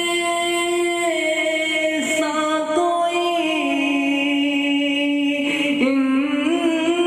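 A solo male voice sings a naat unaccompanied into a microphone. He holds long notes and slides slowly between pitches.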